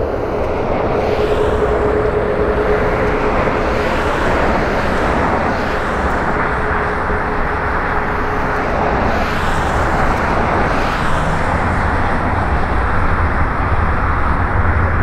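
Airbus A320neo (A320-251N) with CFM LEAP-1A engines landing: a steady rush of jet noise as it touches down and rolls out along the runway, with a faint steady hum that fades about eight seconds in.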